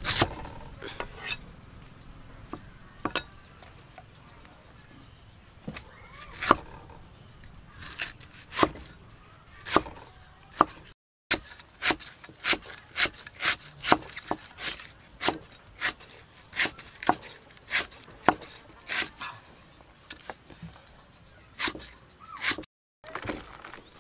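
Cleaver slicing lemongrass stalks on a wooden chopping block: sharp chops, sparse at first, then a steady run of about two a second through the middle.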